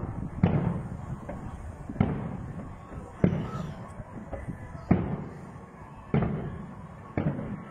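Aerial fireworks shells bursting: six sharp bangs, a second or so apart, each dying away slowly.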